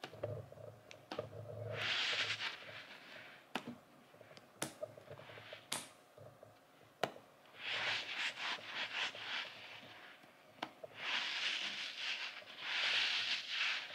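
A soft white duck-shaped squeeze toy from Daiso being stretched and squeezed by fingers close to the microphone. It makes three bursts of crackly, rustling squish, the longest near the end, with a few sharp ticks between them.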